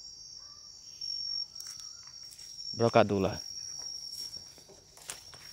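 Night insect chorus: a steady, unbroken high-pitched trill.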